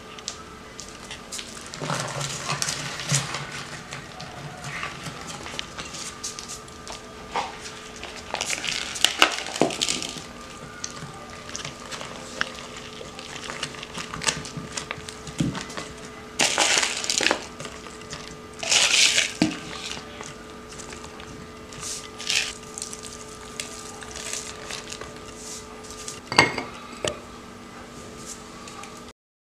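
Tamarind pulp being pressed by hand into a glazed ceramic jar: irregular rustling, scraping and clinking of the pulp, hand and bowl against the jar, with a few louder rustling spells. Near the end a single sharp clink, as the ceramic lid is set on the jar.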